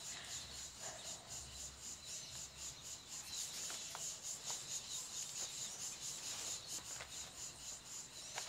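Insects chirping in a steady, high, rapid pulse, with a couple of faint ticks near the middle.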